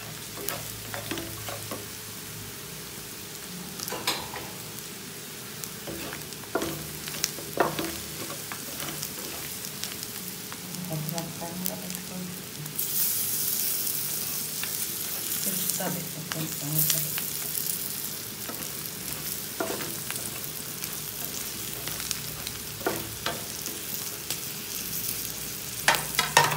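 Pieces of mutton sizzling in oil in a pan, freshly coated with garam masala paste, while a wooden spatula stirs and scrapes them with short knocks against the pan. The sizzle grows louder for a few seconds about halfway through.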